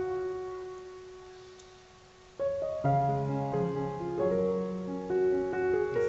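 Background piano music: a held chord rings and fades away for about two seconds, then the tune starts up again with a low bass line under it.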